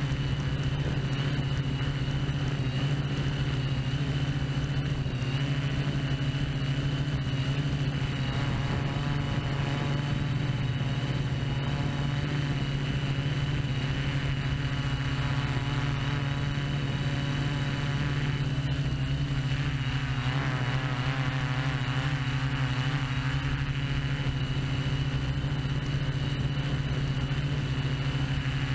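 Drone motors and propellers heard through the drone's own onboard camera: a steady low hum with a thin high whine over it. In the last third, fainter middle tones waver up and down in pitch.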